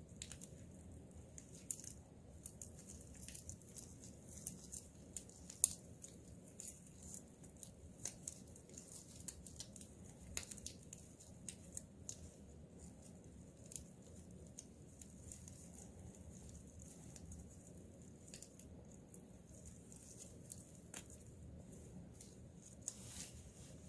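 Faint, scattered rustles and small ticks of hands working craft materials: a sparkly chenille stem being wrapped around the head of a foil-padded cardboard bird form.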